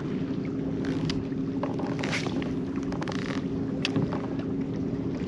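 A small boat motor running steadily with an even low hum, alongside scattered light clicks and water splashes.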